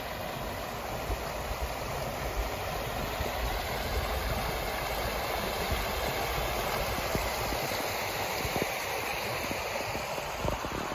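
Small creek splashing over rocks where it pours into a river, a steady rushing of water.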